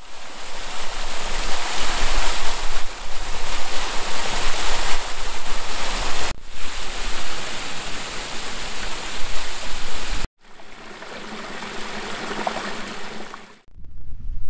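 Steady rushing of a small stream and waterfall, in short clips broken by sudden cuts, quieter after about ten seconds; in the last second, low wind rumble on the microphone.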